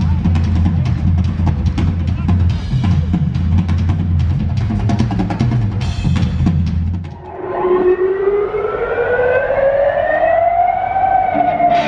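Live rock drum solo on a full drum kit: fast bass drum and cymbal hits. About seven seconds in the drumming stops and a long wailing, siren-like tone rises slowly and then bends down near the end.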